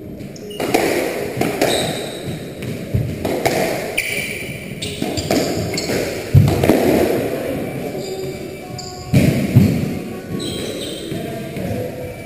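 Squash rally: the ball cracking off rackets and the court walls in irregular hits, the hardest about six and nine seconds in, with short rubber-sole squeaks on the wooden floor between them.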